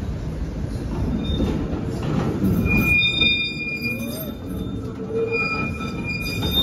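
Double-decker heritage tram running on its rails with a low rumble, its wheels squealing twice in high, steady squeals about a second long each, about three and five seconds in.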